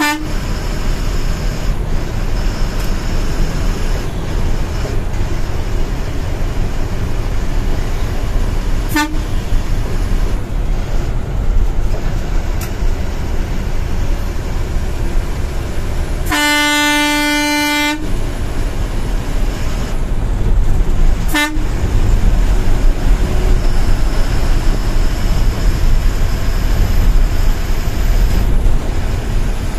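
Steady engine and road noise inside an intercity bus cabin at highway speed. A horn gives short toots at the start and about 9 and 21 seconds in, and one long blast of nearly two seconds about 16 seconds in.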